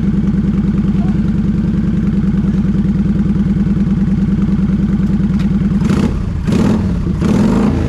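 Kawasaki VN900's V-twin engine idling steadily, freshly brought back to running after being a non-runner. About six seconds in, the engine note changes briefly before settling again.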